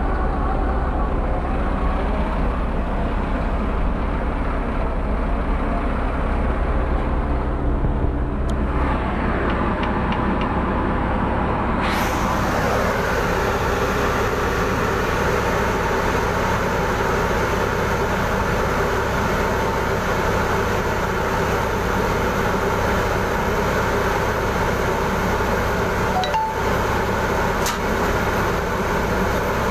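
Heavy construction machinery's diesel engine running steadily, duller at first, then suddenly brighter and hissier a little under halfway through.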